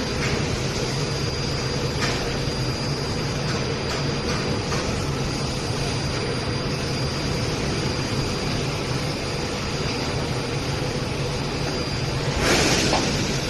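Steady machinery hum with a faint high whine, broken by a few faint sharp clicks. A short, louder rush of noise comes near the end.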